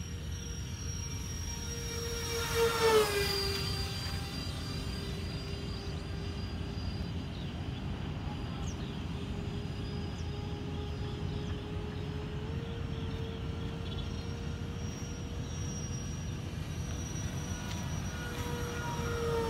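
Twin 70 mm electric ducted fans of an FMS A-10 RC model jet whining in flight. The whine swells and its pitch falls as the model passes close about three seconds in, then holds steady and lower, and starts to swell and fall again at the very end.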